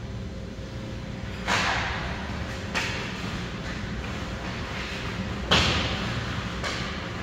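Sharp knocks and bangs from hockey play on the rink: four impacts, the loudest about a second and a half in and again about five and a half seconds in, each ringing on briefly, over a steady low rumble.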